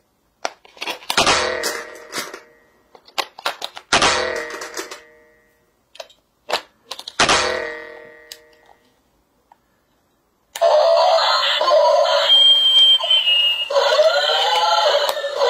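Light plastic clicks from handling the toy and fitting batteries, with three ringing musical notes that fade out slowly, about three seconds apart. About ten seconds in, the battery-powered light-up toy robot car switches on and plays its electronic tune with synthetic sing-song voice sweeps.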